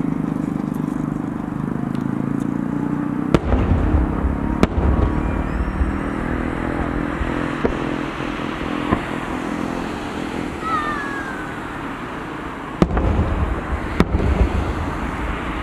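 Aerial fireworks shells bursting: two sharp bangs with a deep rumbling boom a few seconds in, and two more near the end.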